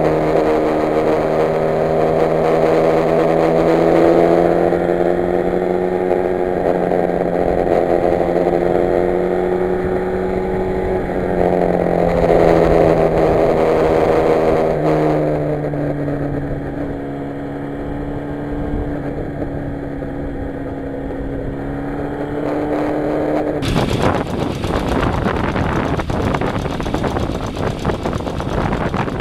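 Yamaha FZR1000 inline-four motorcycle engine running at steady cruising speed, its pitch shifting a couple of times as the throttle changes. About six seconds before the end the engine note gives way to a loud, even rush of wind on the microphone.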